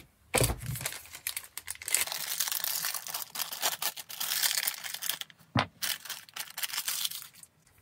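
Packaging crinkling and tearing as a parcel is unwrapped by hand, with many small crackles and a single knock about five and a half seconds in.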